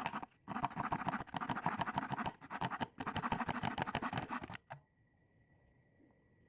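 Rapid rasping strokes on a Gyokucho ryoba Japanese saw, in several quick runs with short breaks, stopping about four and a half seconds in.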